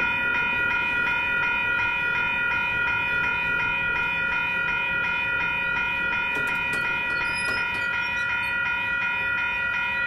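Pacific National NR class diesel locomotive sounding its multi-tone horn in one long, steady blast, a chord of several notes held without a break.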